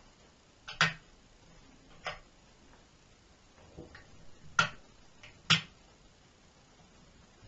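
Sharp metal clicks from the fold-out thread spool pins on a Łucznik KL.441 sewing machine as they are snapped up and folded back down. There is one click about a second in, another about two seconds in, and two louder ones about a second apart later on.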